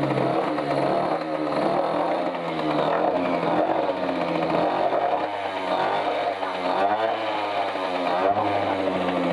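Small outboard motor engine running, its speed rising and falling unevenly.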